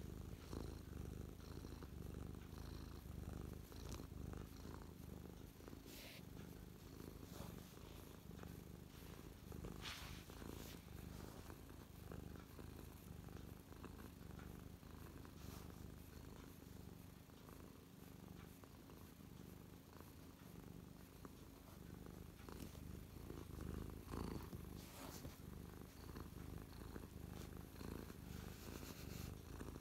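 Domestic tabby cat purring steadily, close to the microphone, in a low continuous pulsing rumble: a contented cat settled on a lap. A few brief faint clicks sound here and there.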